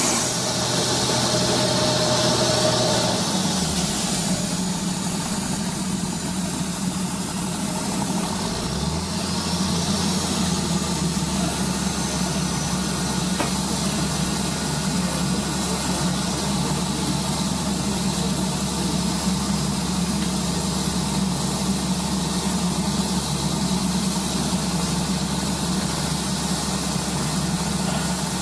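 Engine of a truck-mounted well-drilling rig running steadily. Its speed drops about three seconds in and picks up again around nine seconds, then holds steady.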